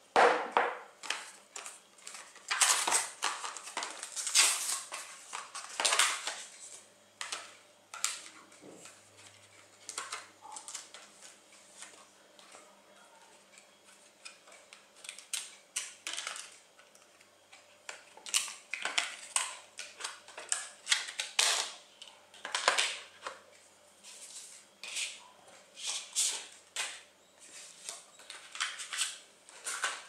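Hands handling small hardware parts and opening an SSD's cardboard and plastic packaging on a tabletop: irregular clicks, taps and rustles, with a sharp knock right at the start.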